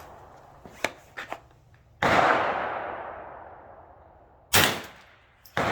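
.22 LR rifle shots at a steel target: a sudden crack about two seconds in with a long fading echo, then a second short, sharp crack about two and a half seconds later. A few faint clicks come before the first shot.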